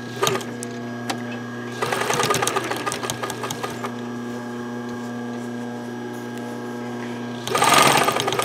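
Electric sewing machine stitching through thick terry towelling in two short runs of about two seconds each, the needle going at a fast, even rate, with a steady hum between. Sewing in and then backing up to lock the start of the seam.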